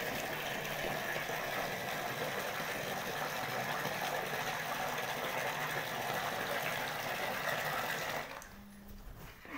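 Water running steadily, like a tap filling a bucket, until it stops about eight seconds in.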